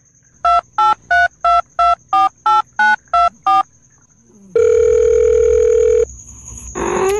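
About ten telephone keypad touch-tones in quick succession, like a number being dialed, then a steady telephone tone lasting about a second and a half. Near the end a cat meows with a rising pitch.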